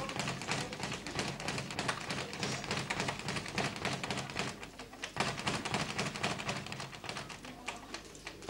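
Boxers sparring in a ring: a busy, irregular run of quick taps and thuds from feet shuffling on the canvas and gloves landing.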